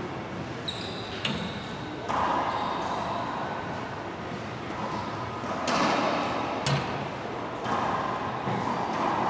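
Racquetball rally: the hollow rubber ball cracking sharply off racquets and the court walls every second or so at irregular intervals, each hit echoing in the enclosed court. A brief high squeak comes near the start.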